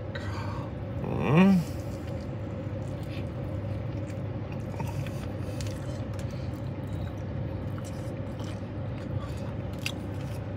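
A man biting and chewing a chicken wing, with small wet mouth clicks. About a second in he gives one short hummed vocal sound that rises and falls. A steady low hum of the car cabin runs underneath.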